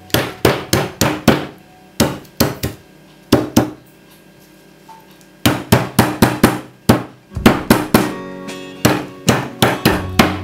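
A round stone pestle knocking on lemongrass stalks and galangal on a wooden cutting board to bruise them: sharp knocks in short bursts, a pause of nearly two seconds in the middle, then a long faster run of blows.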